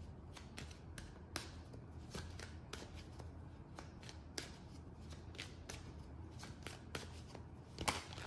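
A deck of tarot cards being shuffled by hand: a run of soft, irregular flicks and slides of cards against each other, with one sharper snap near the end.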